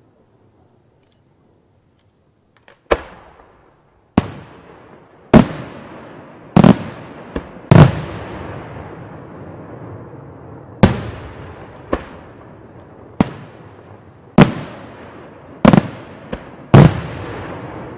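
Aerial firework shells bursting: about a dozen sharp booms, each trailing off in a rolling echo. They start about three seconds in, after a near-silent lead-in, come roughly one every second or so, and pause for about three seconds near the middle.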